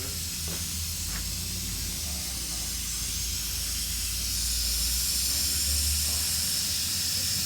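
Sawmill machinery running: a steady low hum under a constant high hiss, growing slightly louder about four seconds in.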